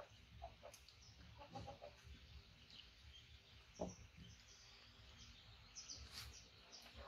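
Near silence, with faint short chirps and soft clicks scattered through it and one slightly louder click about four seconds in.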